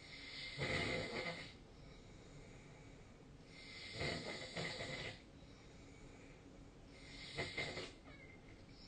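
A sleeping person snoring: three snores about three and a half seconds apart, each lasting about a second.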